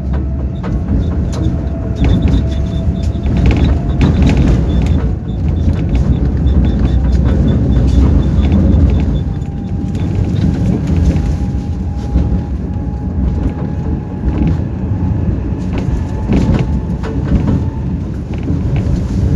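Tram running along the track, heard from inside the car: a steady deep rumble of wheels on rails with scattered clicks. A faint whine from the motors rises slowly in pitch as it picks up speed.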